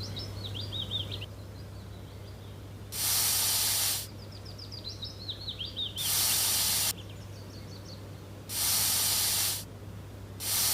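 Snake hissing: three long hisses, each about a second, spaced two to three seconds apart. Small birds chirp faintly in the gaps between hisses.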